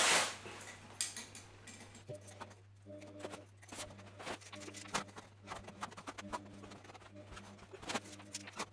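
Scattered light clicks and rattles of plastic toy train track pieces being handled and fitted together, over a steady low hum.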